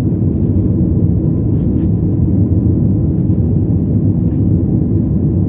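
Airliner cabin noise: a steady low rumble of the engines and rushing air.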